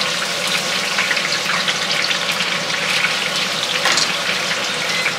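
Food deep-frying in hot oil: a steady sizzle with scattered small crackles, over a faint low hum.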